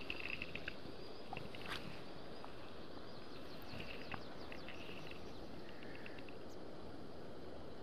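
Steady outdoor background noise with small birds chirping faintly in short trills a few times, near the start and again around four to five seconds in.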